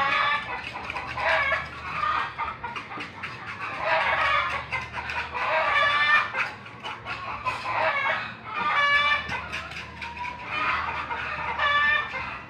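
Chickens clucking and calling over and over, a call every second or two.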